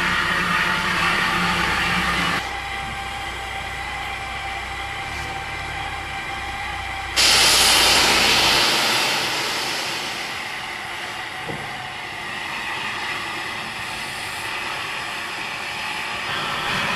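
Steam locomotives simmering in the shed yard: a steady hiss over a low rumble, the hiss cutting off about two seconds in. About seven seconds in, a sudden loud burst of steam venting starts and fades away over the next few seconds.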